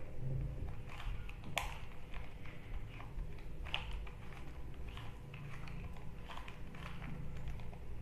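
Plastic 3x3 Rubik's cube being twisted by hand: irregular clicks and clacks as its layers turn, the sharpest about one and a half seconds in.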